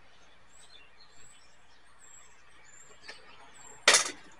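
A loud, sharp plastic snap about four seconds in: the last retaining tab of a VCR's top lid is popped free and the lid springs up. Before it come a couple of faint ticks of plastic being worked.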